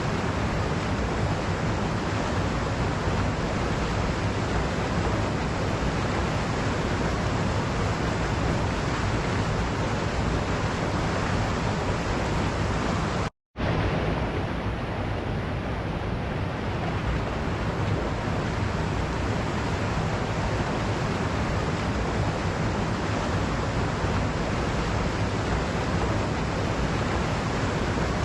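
Waterfall rushing in a steady, even roar of falling water. About halfway through the sound cuts out completely for a split second and then resumes, with the highest pitches briefly softer afterwards.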